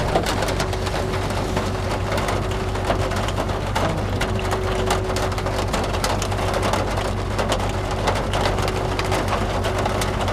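Rain striking a vehicle's windows and body: a dense patter of individual drop hits over a steady rushing noise, with a steady low hum underneath.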